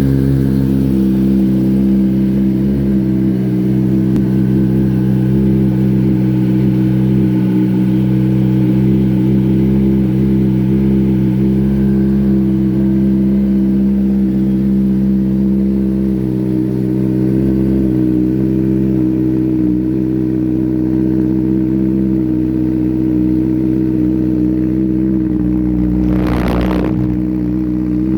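Kawasaki ZX-10R's inline-four engine idling steadily while warming up. A brief hiss cuts across it near the end.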